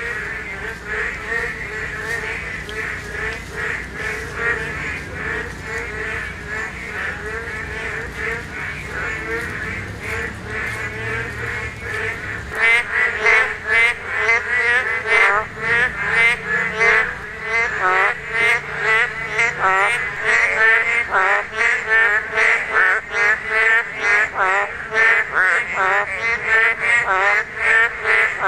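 A dense chorus of boreal digging frogs (Kaloula borealis) calling at a breeding pool, many overlapping calls repeating rapidly. The chorus grows louder and more sharply pulsed about halfway through.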